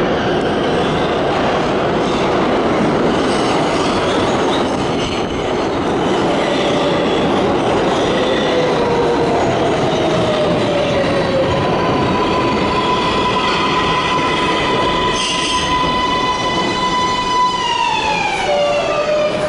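R188 subway train pulling into an underground station: loud rumble of wheels on rail as the cars pass, with a high whine that holds steady, then glides down in pitch near the end as the train slows to a stop.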